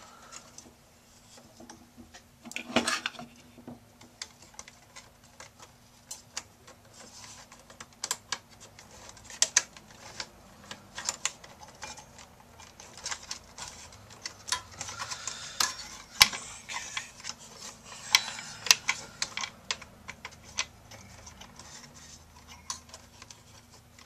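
Irregular clicks, taps and rattles of cables, plastic connectors and sheet-metal parts being pushed and fitted by hand inside an open desktop computer case, with a few busier clusters of clatter.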